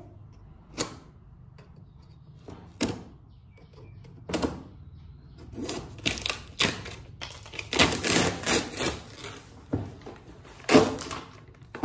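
A knife slitting packing tape on a cardboard box: a few separate scrapes and rips, then a denser run of them. Near the end comes the rustle of the cardboard sleeve being pulled off the box.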